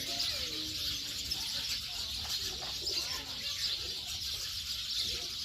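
Birds calling, with low cooing notes, over a steady high hiss.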